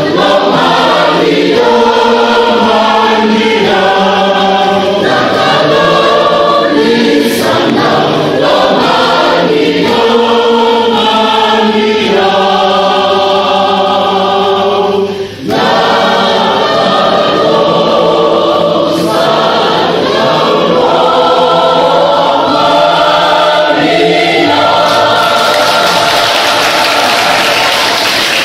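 Mixed church choir of women and children singing together, with a brief break between phrases about halfway through.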